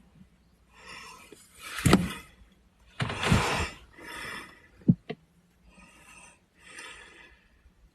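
A sleeping boy snoring and breathing heavily: two louder snores with a low flutter about two and three seconds in, then softer breaths, with one short sharp click about five seconds in.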